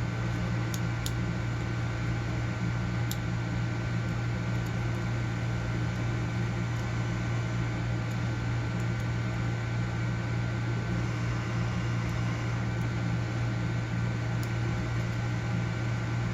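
Steady background hum, like a running fan, with a thin high tone over it. A few faint, scattered ticks come through, the pick clicking on the pins of an all-brass Hurd padlock.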